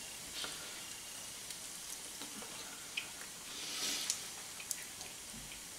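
Faint hiss and soft crackle of wood embers in an open hearth, with a few small clicks and a brief rustle about four seconds in as a roasted duck is torn apart by hand.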